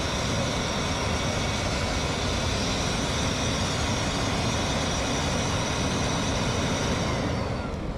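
A motor-driven blower forcing air into the base of a burning Swedish log torch: a steady whine of the motor over a hard rush of fanned flames. The upper part of the noise dies away and the whole drops near the end, as the blower winds down.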